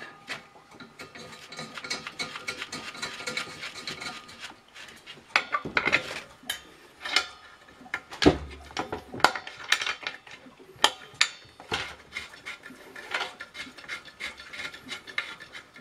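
Irregular metal clinks, knocks and scraping of steel pipe fittings being handled and seated on the metal lid of a homemade still's boiler as its dry steamer is installed, with one heavier knock about eight seconds in.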